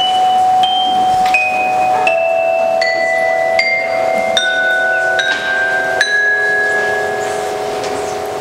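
Mallet keyboard percussion playing a slow line of single struck notes, about one every three-quarters of a second, each left ringing so that they overlap, stepping mostly downward in pitch.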